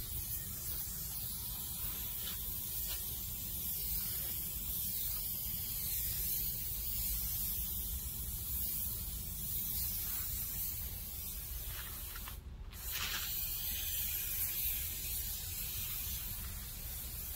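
Aerosol can of spray adhesive hissing as it is sprayed in long, steady passes, with a brief break about twelve seconds in.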